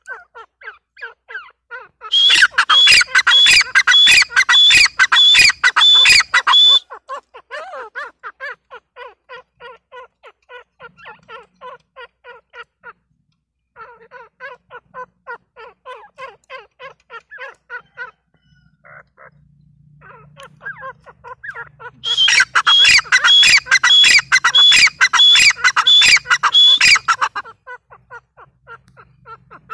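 Grey francolins calling: a steady run of quick, repeated call notes, broken by two loud, ringing bouts of rapidly repeated calls, each about five seconds long, starting about two seconds in and again after about twenty-two seconds.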